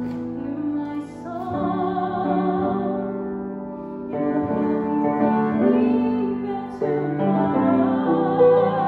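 Background music: a sung melody with wide vibrato over piano accompaniment, in a slow, show-tune style.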